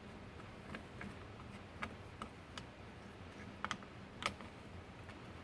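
Faint, scattered clicks and taps of small plastic and metal parts being handled, as the rotor is fitted back onto the top of a GM HEI distributor.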